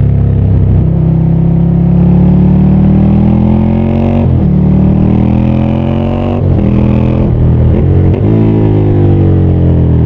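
Ducati Scrambler 800's air-cooled L-twin engine under way. The revs climb, drop sharply twice as it shifts up (about four and six seconds in), then fall steadily near the end as the bike slows.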